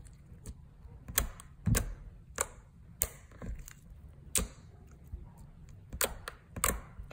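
Thick foam-bead slime squished and poked by fingers, giving a dozen or so sharp, irregular clicks and pops.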